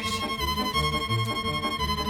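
Background music: a lively tune led by fiddle with an accordion-like sound, over a steady bass beat.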